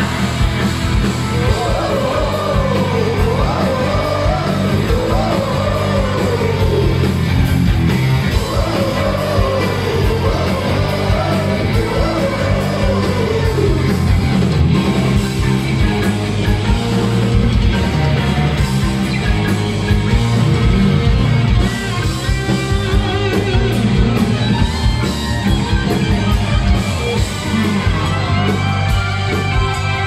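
Live hard rock band playing loud: a male singer over electric guitar, bass guitar, keyboards and drums. The vocal line is strongest in roughly the first half, then the instruments carry on.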